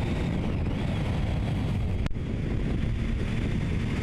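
Triumph Street Triple motorcycle ridden at steady road speed: its three-cylinder engine runs under a heavy rush of wind on the microphone, even throughout.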